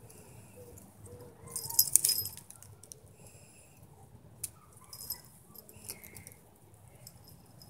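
Leaves and thin twigs of a tree rustling and crackling as they are brushed and bent, loudest in a burst about two seconds in, with a few single sharp clicks later.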